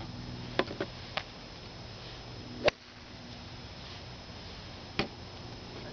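A few sharp clicks and knocks of golf club heads tapping a golf ball as it is raked from the ball tray onto the hitting mat. The loudest knock comes about two and a half seconds in and another about five seconds in, over a faint steady hum.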